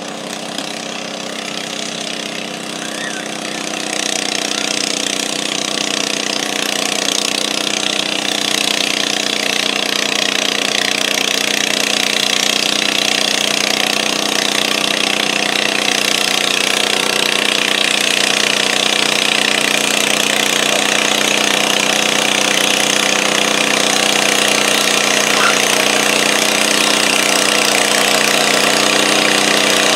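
Massey Ferguson garden tractor's engine running at a steady, high speed under load as it drags a weight-transfer pulling sled, getting louder about four seconds in and then holding an even pitch.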